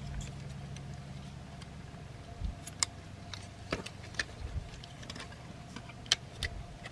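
Scattered sharp plastic clicks and taps as the parts of a plastic transforming robot figure are moved and pegged into place, over a steady low hum.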